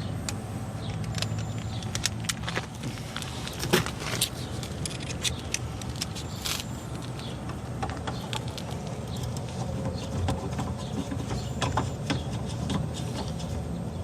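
Steady low hum of a rooftop air-conditioning unit's blower running, with scattered clicks, taps and rattles of tools and metal parts being handled at the unit. The contactor is not pulling in, so the compressor is not running.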